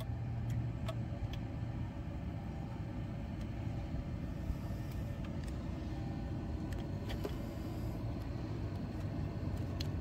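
Steady low engine rumble in the background, with a few faint, sharp clicks.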